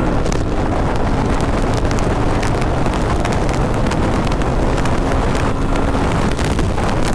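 Motorcycle ridden at speed during a drag race, with heavy wind rushing over the microphone and the engine running underneath, steady throughout.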